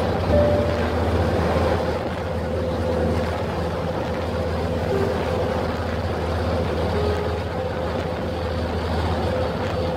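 Ferry engine running with a steady low drone, under a constant rush of wake water and wind.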